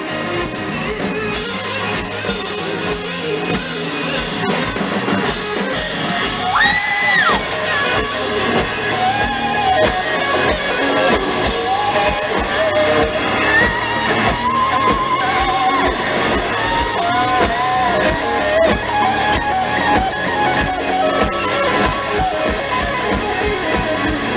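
Live band music played loud, with guitar and drums; a high note slides up, holds and slides back down about seven seconds in, followed by melodic lead lines.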